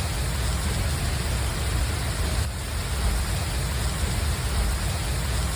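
Heavy rain falling: a steady, even hiss with a low rumble underneath.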